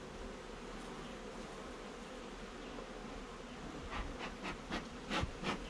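Honeybees buzzing steadily around an open hive. About four seconds in, a quick run of short clicks and knocks starts over the buzz.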